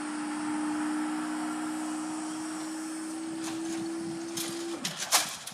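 Level crossing barrier mechanism humming steadily as the barriers rise, then dropping in pitch and stopping near the end; a few clicks follow.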